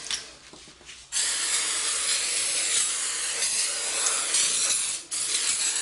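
Aerosol cleaner hissing as it is sprayed onto a new brake disc to wash off the rust-protectant coating: a steady spray starting about a second in, a brief break near the end, then spraying again.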